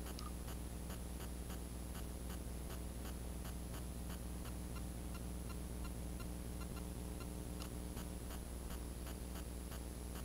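Faint, even ticking, about four ticks a second, over a steady low hum.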